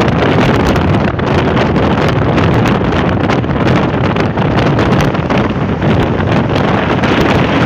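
Wind buffeting the microphone of a moving car, with steady road and engine noise from the car driving along a motorway.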